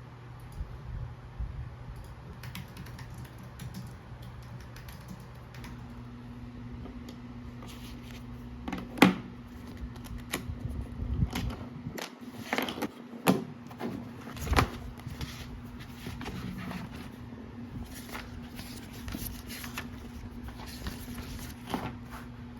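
Scattered light clicks and taps of small objects being handled, with a steady low hum underneath. A sharp knock about nine seconds in is the loudest sound, and a run of knocks follows a few seconds later.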